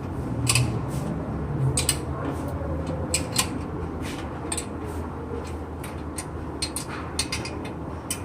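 Irregular sharp metallic clicks and clinks of hand tools and bolts as a motorcycle exhaust is fitted, over a steady low hum.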